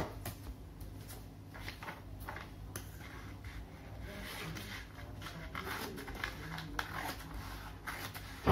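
Scissors cutting through a folded sheet of colour paper: a run of soft, irregular snips and paper crackle, over a low steady hum.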